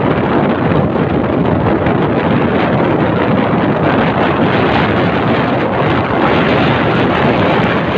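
Steady rush of wind buffeting the microphone while riding a Honda XRM 125 Fi motorcycle, mixed with the bike's engine and road noise.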